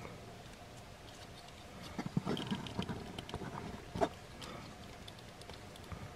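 Hard plastic parts of a transforming robot action figure clicking and rubbing as they are folded and pushed into tight peg joints: a cluster of small clicks about two seconds in and a single sharper click about four seconds in.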